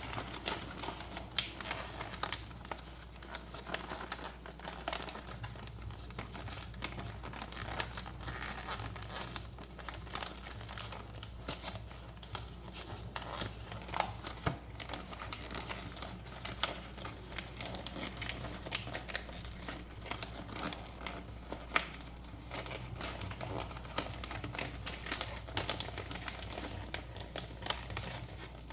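Plastic packaging crinkling, with many small clicks and ticks of plastic toy pieces being handled as a toy playset is unboxed.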